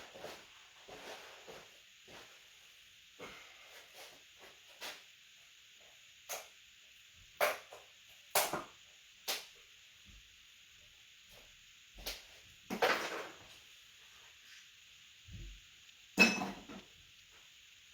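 Scattered knocks and clatter of objects being handled, some metallic, with the sharpest few about 7 to 9 seconds in, around 13 seconds and around 16 seconds. A steady faint hiss runs under them.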